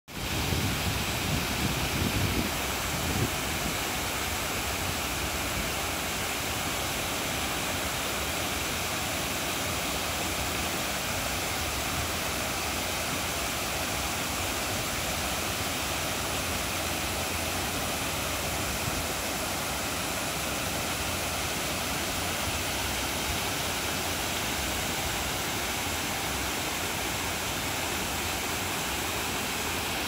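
Waterfall pouring over a stone weir into a pool: a steady, even rush of falling water. Some extra low rumbling comes in during the first three seconds.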